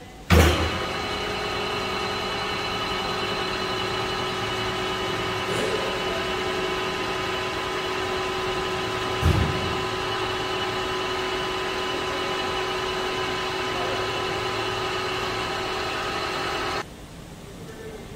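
Metal lathe running at 800 RPM while facing the end of a nylon workpiece: a steady mechanical whine made of several fixed tones from the motor and gearing. It starts abruptly with a thump, has a single knock about nine seconds in, and cuts off abruptly near the end.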